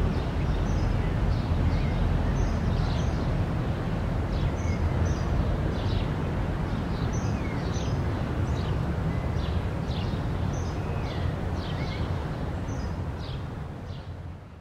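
Outdoor ambience: a steady low rumble with small birds chirping over it again and again, fading out near the end.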